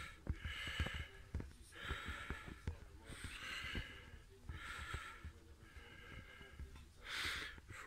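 A person's breathing close to the microphone: about six short, hissy breaths, roughly one every second and a half, with faint handling knocks underneath.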